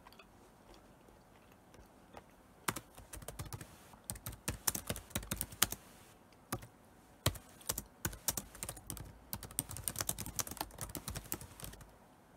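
Typing on a laptop keyboard: irregular runs of quick key clicks, starting about two and a half seconds in and going on until near the end.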